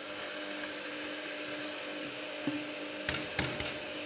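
Chicken and onions frying in a pot: a steady sizzle under a low, even hum, with a few light knocks on the pot near the end.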